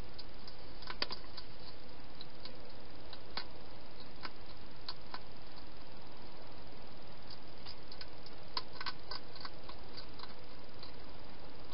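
Wild hedgehog eating from a bowl in a plastic feeding box: scattered faint clicks and crunches, with a quick flurry of them near the end, over a steady hiss.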